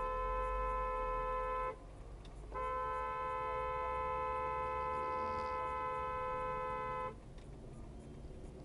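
Vehicle horn held in two long, steady blasts: one stops a little under two seconds in, the next starts about a second later and sounds for about four and a half seconds. These are long honks of the kind sounded as a reproach at traffic violators.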